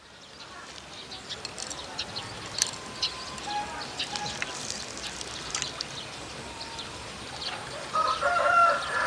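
Chickens clucking with scattered short chirps, then a rooster crowing near the end, the loudest sound.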